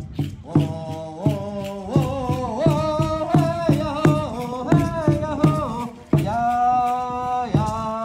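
Ceremonial chant sung by voices in long, sliding notes over a steady beat of regular strokes, a little faster than one a second. The singing breaks briefly about six seconds in, then resumes.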